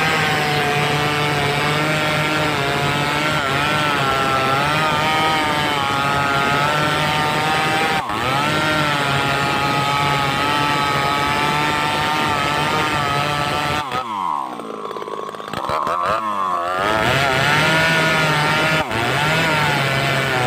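Two-stroke chainsaw running at high revs while cutting wood, its pitch wavering slightly under load. About fourteen seconds in, the throttle is let off and the engine drops briefly toward idle, then revs back up.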